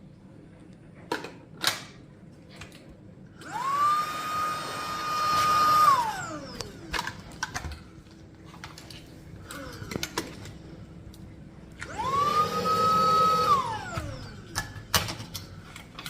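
Tineco cordless handheld vacuum switched on twice, for about two to three seconds each time, starting about three seconds in and again about twelve seconds in. Each time the motor spins up to a steady high whine, then winds down when switched off. Sharp clicks of the unit being handled come between and around the runs.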